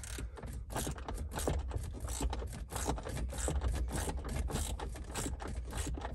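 Hand ratchet clicking in a steady run, about three to four clicks a second, as a bolt is run in.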